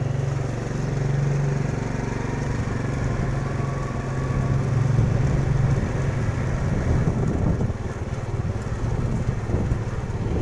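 Motorcycle engine running while riding along a lane, a little softer for the last couple of seconds.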